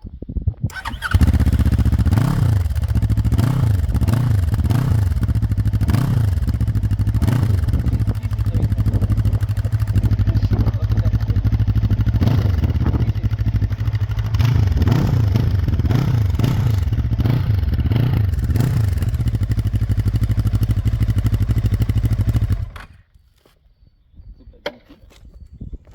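Junak SR 400 (Zongshen Cyclone RE3) 400 cc motorcycle engine through its stock exhaust, starting about a second in and idling. It is revved in repeated throttle blips twice, then switched off and stops abruptly near the end.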